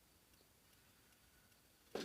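Near silence, with one sharp click or knock near the end.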